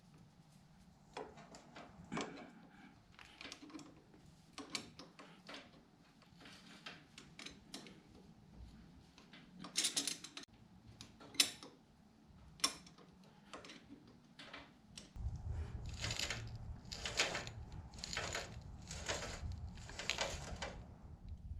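Hand tools clinking and knocking against metal parts in short, irregular strikes. A low steady rumble joins about two-thirds of the way through.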